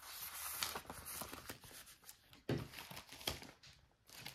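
Paper rustling and crinkling as old photo-album pages and photographs are handled and turned, with a few light clicks.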